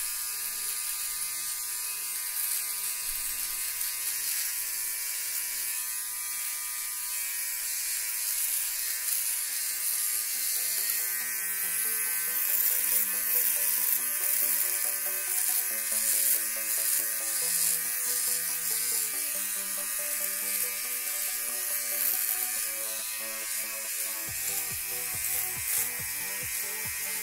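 Philips OneBlade Pro electric trimmer buzzing steadily as it shaves stubble on the face and neck, with a scratchy hiss of hairs being cut. Background music with a stepping melody joins about twelve seconds in.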